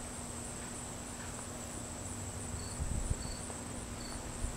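Crickets and other insects in the grass: a steady high trill, with short chirps repeating in the second half. A few low bumps come about three seconds in and again near the end.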